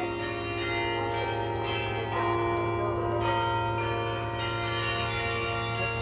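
Carillon bells playing a slow tune, a new note struck about once a second over the long, overlapping ringing of earlier notes.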